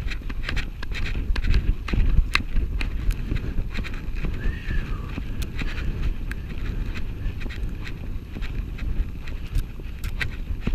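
Horse moving at speed over grass, heard from the saddle: steady hoofbeats with many short sharp clicks, under a heavy rumble of wind buffeting the helmet camera's microphone.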